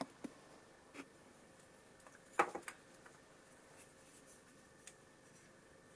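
A few light taps and clicks of carved wooden marionette leg parts being handled and fitted together, the loudest a quick cluster of knocks a little past two seconds in.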